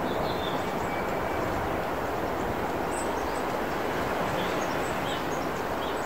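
Steady rushing outdoor background noise, with a few faint, short bird chirps over it.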